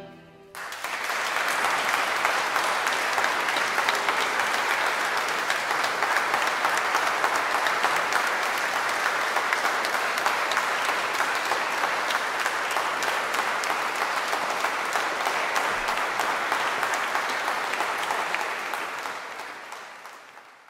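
Audience applauding: the clapping starts about half a second in, holds steady, then fades away over the last couple of seconds.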